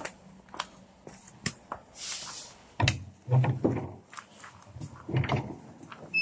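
Dull knocks and rattles of an old bus's folding door and glass panels being bumped and pushed, in two clusters about three and five seconds in, with light footsteps on grass between.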